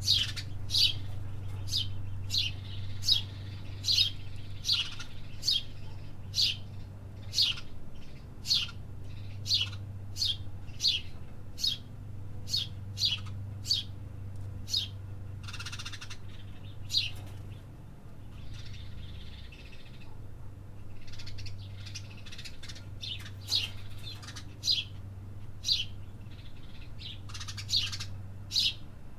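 A small bird chirping over and over, sharp short chirps that drop in pitch, about two a second, with a pause of a few seconds past the middle. A steady low hum runs underneath.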